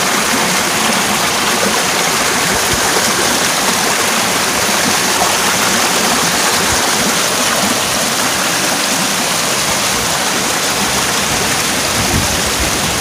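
Fast mountain stream rushing and splashing over rocks as white water, a steady, loud rush.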